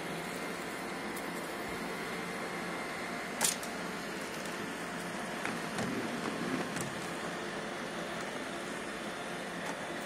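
iRobot Roomba e5 robot vacuum running over carpet strewn with confetti, a steady whir of its suction motor and brushes. A sharp click comes about three and a half seconds in, and a brief patch of rattling follows around six seconds in.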